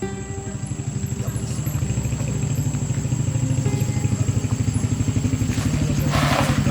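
A small engine running with a fast, even pulse, slowly getting louder.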